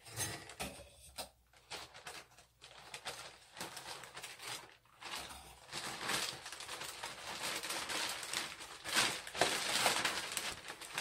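A large plastic delivery bag rustling and crinkling as it is held and handled, in irregular crackles, louder and busier in the second half.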